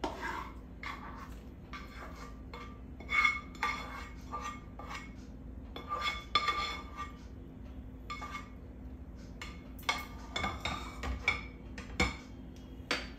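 A metal spoon scraping and tapping against a small metal pan, in several bursts of clinks that each ring briefly, as fried grated apple is knocked out of it.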